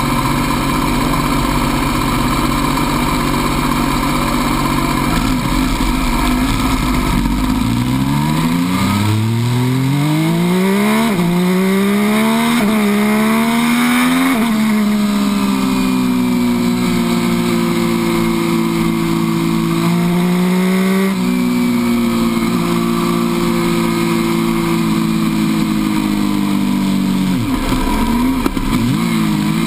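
MV Agusta F3 800's three-cylinder engine heard from on board, running steadily at first, then accelerating hard through several quick upshifts. The pitch climbs and drops at each gear change, then holds fairly steady, with a brief dip in revs near the end, over a constant rush of wind.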